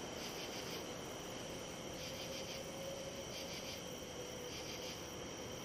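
Night-time crickets chirping: a steady high-pitched chorus with louder bursts of pulsed trills every second or two, and a faint steady hum underneath.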